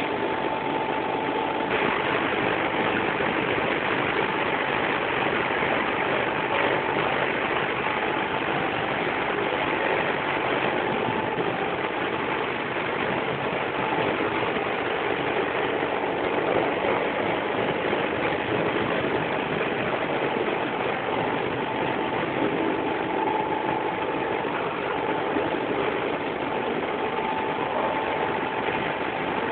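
Processing-plant machinery running steadily: a constant mechanical din with a faint steady tone running through it.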